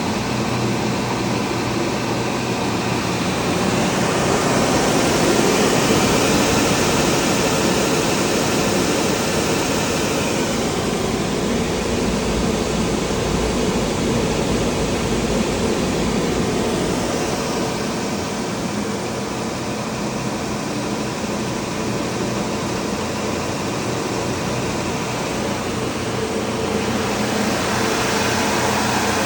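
Timesaver 25-inch dry-type wide belt sander running with its conveyor and sanding belt on: a steady running noise from the belt and motors that swells and eases slowly a few times. It is nice and quiet.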